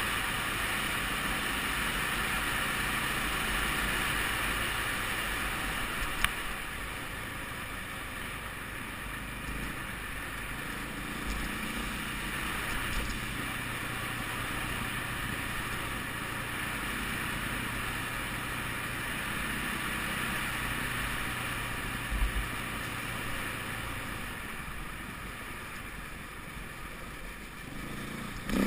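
2008 KTM 450 EXC-R single-cylinder four-stroke enduro motorcycle running under way on a dirt trail, heard from a helmet-mounted camera. A few sharp knocks stand out, about six seconds in, after about twenty-two seconds and near the end.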